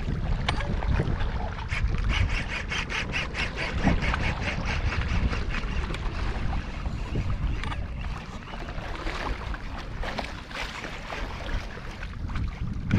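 Fishing reel's drag clicking rapidly, about eight clicks a second for a couple of seconds, as a hooked fish takes line on a big run; scattered clicks follow. Wind and water noise on the kayak run underneath.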